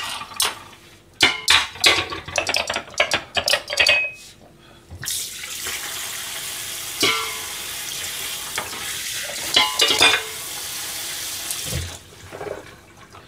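Crockery clattering and clinking in a stainless steel kitchen sink for the first few seconds. The kitchen tap then runs steadily for about seven seconds while dishes are rinsed under it, with a few clinks of plates, and cuts off near the end.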